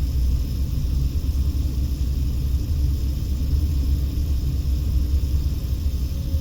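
Steady low rumble of a car being driven, heard from inside the cabin: engine and tyre noise.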